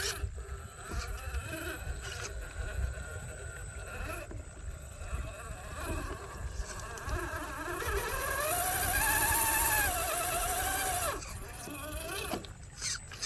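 RC car's motor whining, its pitch rising and falling with the throttle. About eight seconds in the whine climbs and gets louder, holds for about three seconds, then cuts off suddenly.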